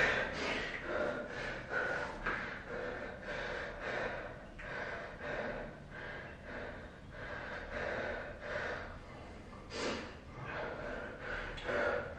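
A man panting hard, quick heavy breaths in and out at about two a second: out of breath from a set of burpees.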